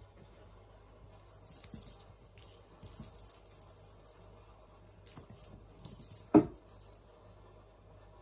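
Plastic catnip packet crinkling in short bursts as it is handled, with one sharp thump about six seconds in.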